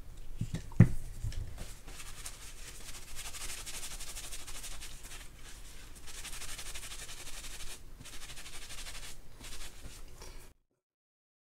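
A sharp click from the small screwdriver and reel housing about a second in, then several seconds of scratchy rubbing as a paper shop towel wipes grease off a part; the sound cuts off suddenly near the end.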